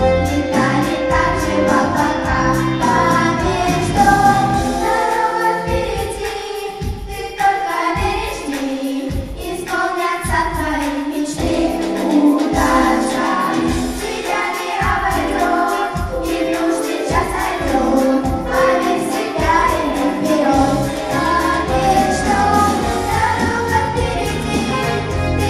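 A song performed live: voices singing over backing music with a steady beat.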